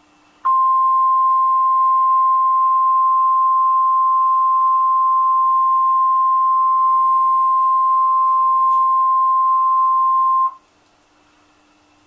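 NOAA Weather Radio warning alarm tone: a single steady 1050 Hz tone held for about ten seconds through the radio's speaker, then cut off sharply. It signals that a warning message, here a tornado warning, follows.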